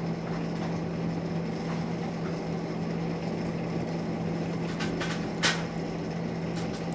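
Steady low hum over background noise, with one short click about five and a half seconds in.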